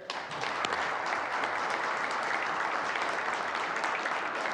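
Applause from the members of a legislative assembly: many people clapping in a steady round.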